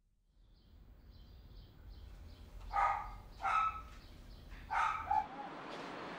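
A dog barks three times, the second quickly after the first and the third a little over a second later, over faint bird chirps and a low background rumble.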